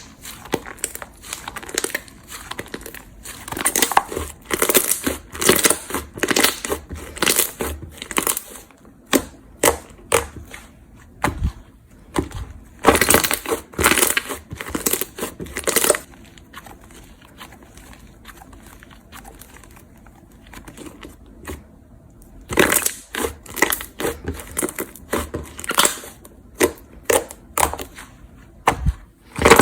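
Slime being squeezed and pressed by hand, giving dense clusters of crackling pops and crunches. It goes quieter for a few seconds midway, then the crackling picks up again.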